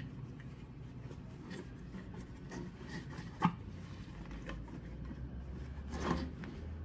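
Linen drawstring bag rustling and rubbing as a plastic soprano ukulele is slid into it, with a sharp knock about halfway through and a louder rustle near the end.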